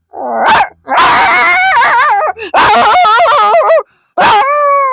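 A boy imitating a dog with his voice: a run of long, wavering, howl-like calls with short breaks between them.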